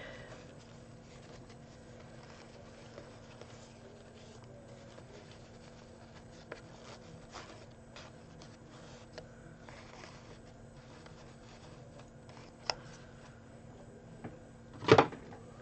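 Soft handling and rustling of fabric gingham ribbon being tied into a bow, with scattered small clicks over a faint steady hum. One loud thump comes near the end.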